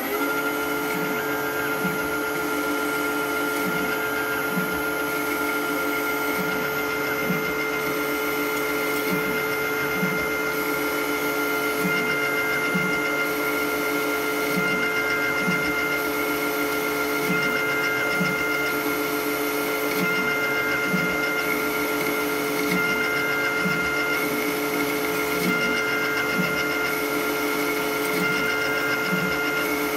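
Titan 32Bb lathe, converted to CNC, running a threading cycle: the spindle runs at speed with a steady whine. A small change in the sound repeats about every 1.7 s as the tool makes pass after pass along the thread.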